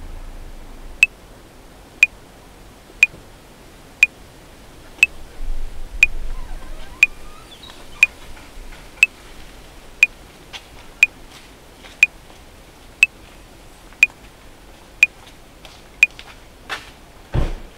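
Metronome at 60 beats per minute: sixteen short, high clicks, one each second, then it stops. Faint background noise under it, with a low rumble in the middle and a single low thump near the end.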